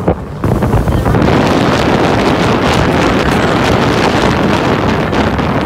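Wind buffeting the microphone on a moving boat: a loud, steady rushing that comes up sharply about half a second in.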